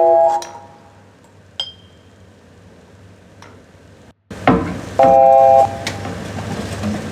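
Experimental soundscape: a held chord fades out, a single high glassy ping rings about a second and a half in, then after a brief dropout a clatter of kitchen-like clinking and a short chord sound over a steady hiss.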